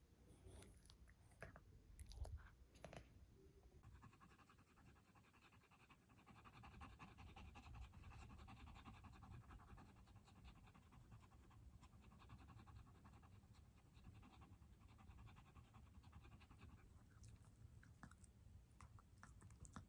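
A Pomchi dog breathing rapidly in quick, even pulses, faint and panting-like, during a breathing attack that the owner's footage later showed to be reverse sneezing rather than tracheal collapse. A soft knock is heard about two seconds in.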